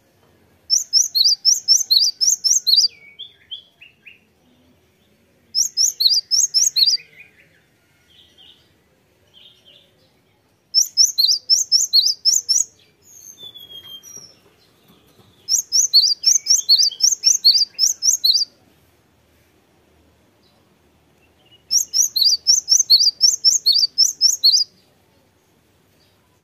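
Cinereous tit (gelatik batu) singing in five loud bursts, each of about a dozen quick, high, sweeping notes repeated roughly five a second for two to three seconds, with a few soft calls in the gaps.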